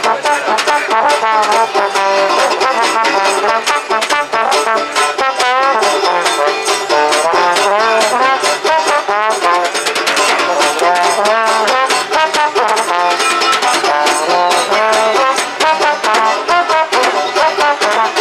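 A small street jazz band playing: a trombone carries the melody with sliding glides, over a strummed banjo and a steady beat of stick-played percussion.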